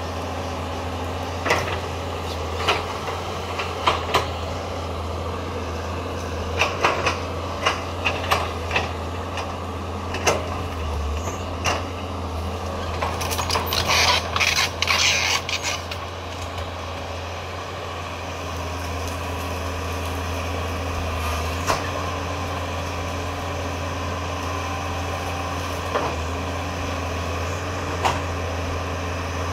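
Caterpillar 320C excavator's diesel engine running steadily as the bucket digs soil and pulls out brush. Sharp knocks and clanks are scattered through it, with a dense spell of crackling and rattling about halfway through.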